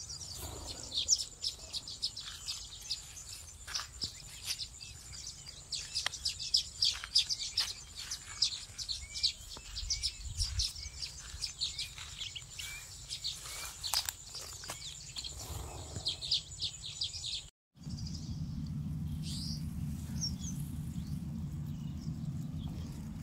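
A flock of sparrows chirping busily in a ripening rice paddy, with a steady high thin tone running under the calls. After a sudden cut about three-quarters through, a steady low rumble takes over with only a few chirps.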